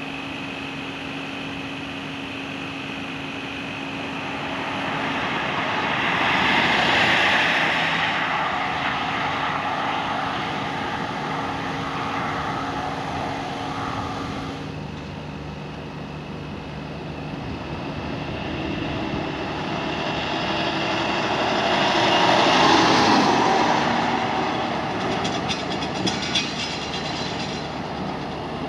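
Two large vehicles driving past, one after the other, each building to a peak and fading away, over the steady hum of an engine running nearby. A few short clicks come near the end.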